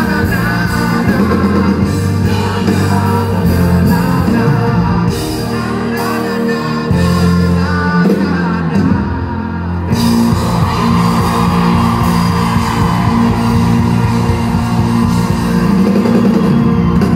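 Live rock band playing with a male lead singer, heard from the audience in a concert hall.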